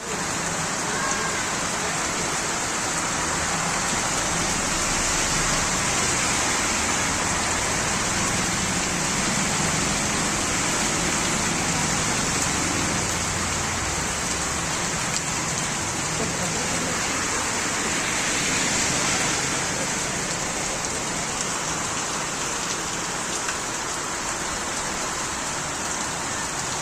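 Rain falling steadily, an even hiss that holds throughout.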